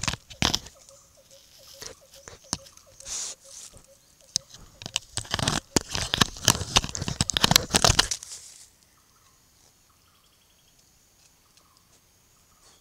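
A dhole handling a camera trap up against the microphone: a rapid run of scrapes, knocks and rustles on the housing and leaf litter, heaviest in the middle, stopping suddenly about eight seconds in.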